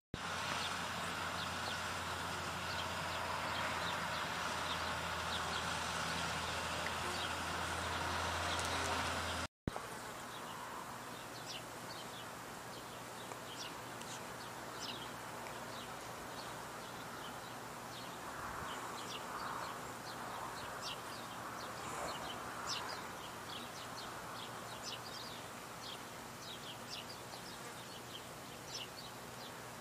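Bees buzzing, a steady low hum over hiss. After a brief dropout about ten seconds in, hiss with many short, high chirps repeating irregularly.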